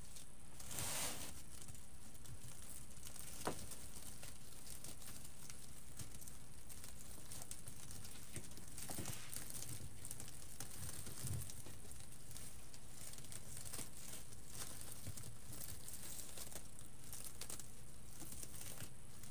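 Faint crinkling and rustling of deco mesh and ribbon being handled and twisted into pipe-cleaner ties, with a single sharp click about three and a half seconds in.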